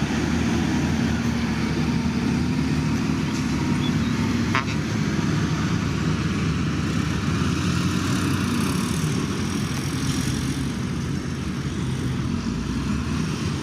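Heavy diesel engine of earthmoving equipment running steadily, with one short click about four and a half seconds in.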